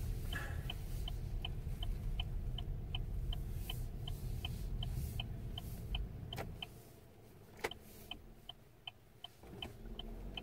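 Car turn-signal indicator ticking steadily, a bit under three clicks a second, over low engine and road rumble from inside the cabin. The rumble drops away about two-thirds of the way through, and there are a couple of sharper knocks.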